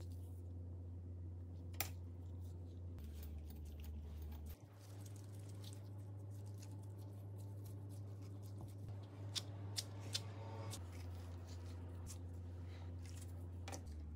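Gloved hands working songpyeon rice-cake dough and small plastic shaping tools on a silicone mat: soft handling noises with a few light clicks, about two seconds in and in a quick run near the middle, over a steady low hum.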